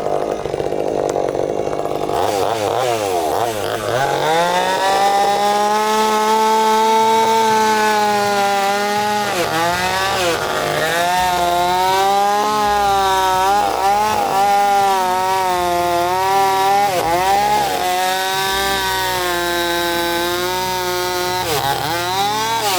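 Chainsaw cutting into a wooden log while the carver takes out the squares around a pumpkin's stem. It revs up a few seconds in, and its pitch sags briefly several times as the chain bites into the wood.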